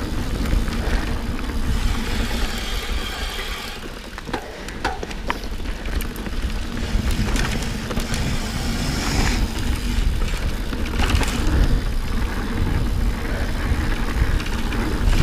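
Riding noise from a Santa Cruz Hightower Plus mountain bike on a dirt singletrack: the tyres rolling over the trail and wind buffeting the camera microphone with a heavy low rumble. A few sharp clicks come between about four and six seconds in.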